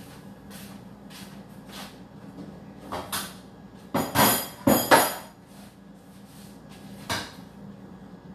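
Kitchen handling noise: a scattering of knocks and clatters, the loudest a quick cluster of bangs about four to five seconds in, over a steady low hum.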